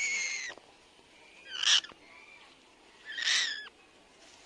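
Young rescued bird calling: a drawn-out call that stops about half a second in, then two short, harsh, rasping calls about a second and a half apart.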